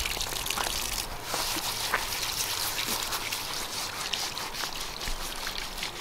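Water trickling and splashing steadily while dishes are washed by hand, with a few light clicks.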